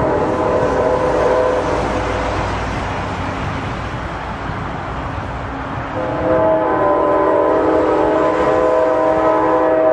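Locomotive air horn sounding as a chord, in two long blasts: the first fades out about two seconds in, and the second starts loudly about six seconds in. A steady train rumble runs underneath.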